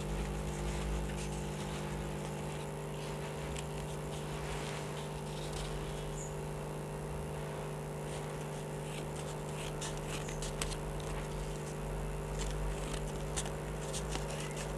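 Small scissors snipping folded paper, with paper rustling and scattered clicks that come more often in the second half, over a steady low hum.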